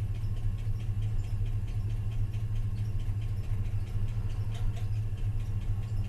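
A truck engine idling steadily, with a light, evenly repeated ticking over the low hum.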